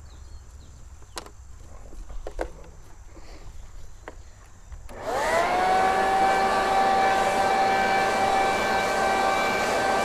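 A leaf blower starts about halfway through: its pitch rises quickly, then it holds a steady high whine over rushing air while it blows loosened lawn thatch.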